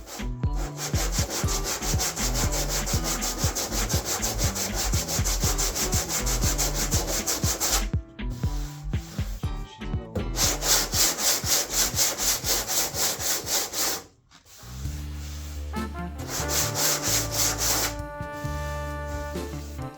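Hand sanding a car body panel with a sanding block: quick, rhythmic back-and-forth strokes in long runs, with a short pause about eight seconds in and a stop around fourteen seconds. Background music runs underneath and comes up in the last few seconds.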